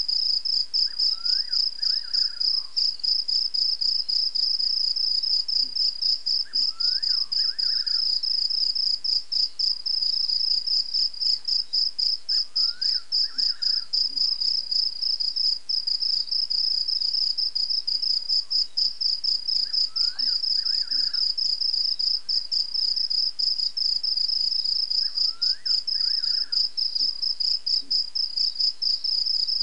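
Night insects, crickets or katydids, chirping in a loud, steady chorus of fast pulses. A short rising call, higher than a voice but lower than the insects, repeats about every six seconds.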